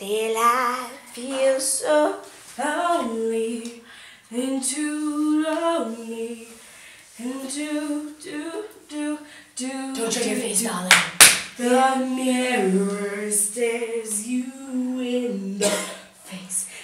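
Women singing unaccompanied, a melody of held notes that step up and down, in a small room. A single sharp knock comes about eleven seconds in.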